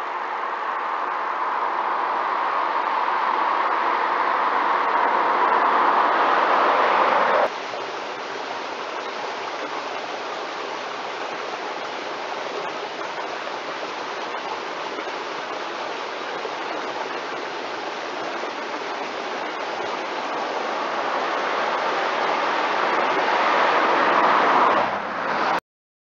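Pontiac Firebird Trans Am V8 approaching, its sound swelling steadily louder before cutting off suddenly about seven seconds in. A fainter, steady rush follows, which builds again as the car draws nearer and cuts off suddenly near the end.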